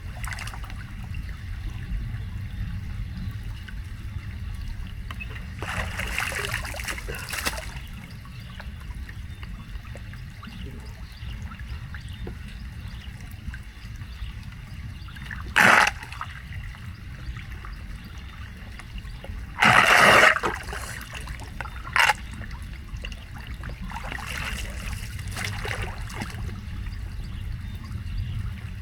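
Floodwater trickling and running steadily at a street drain being unclogged, with a few short louder splashing sounds, the loudest about twenty seconds in.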